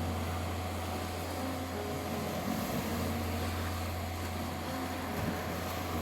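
Sea waves washing on a beach under a steady 741 Hz tone and a low droning meditation-music pad with faint soft notes above it.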